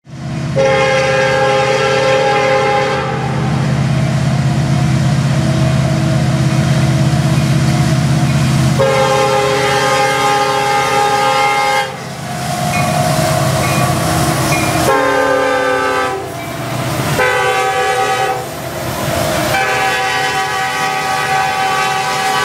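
Sound from the onboard sound systems of HO-scale model diesel locomotives (SD70ACe and SD70M-2 models): a steady diesel engine rumble, with a multi-note horn sounded several times, some blasts long and some short.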